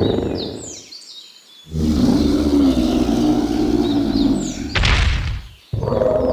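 Designed creature vocalisation: low, pitched growling calls with short, high, falling chirps laid over them, broken by brief silences, and a short hissing burst about five seconds in.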